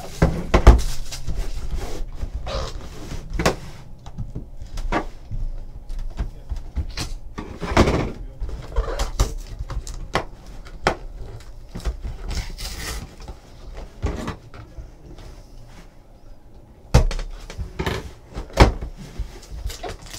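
A cardboard 2013 Panini Playbook football box being opened by hand on a table: scattered knocks and thumps with cardboard scraping and sliding. The loudest knock comes about a second in, and there are a few more near the end.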